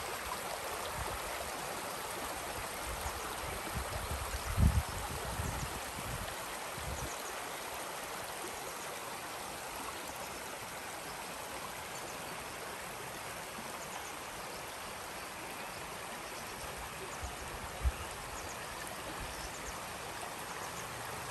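Shallow stream running over limestone pebbles and rocks, a steady rushing and gurgling. Two short low thumps break in, one about five seconds in and one near eighteen seconds.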